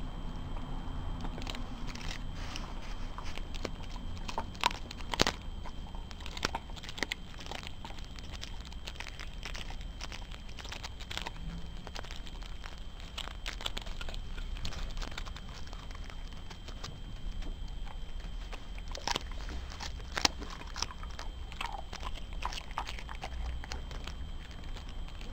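A Cairn terrier chewing raw chicken thighs on the bone, with irregular wet crunches as the bone breaks. The loudest crunches come about five seconds in and again about twenty seconds in.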